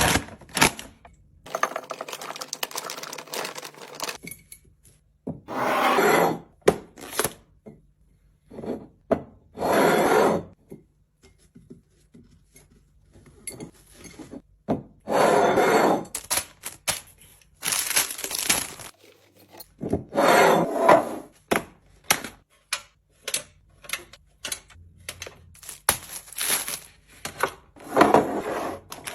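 Handling sounds of restocking a fridge: containers, jars and lids knocked, set down and clicked shut in quick succession, with about five louder bursts, each about a second long, of rustling or pouring.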